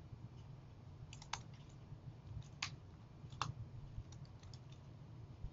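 Computer keyboard typing: scattered single keystrokes, a few at a time with pauses between, faint, over a low steady hum.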